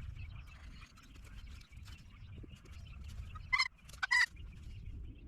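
An animal calling twice, two short sharp calls about half a second apart, over a low steady rumble.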